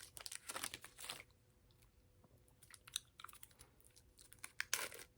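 Close-up mouth sounds of someone chewing a fruit roll-up, a chewy, gum-like chew. It comes in short spells of soft, wet clicks: through the first second, again around three seconds in, and once more near the end.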